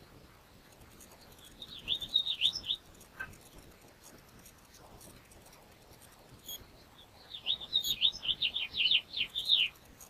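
House finches at a nest chirping: two bursts of rapid, high, down-slurred chirps. The first is short, about two seconds in; the second is longer, in the last three seconds.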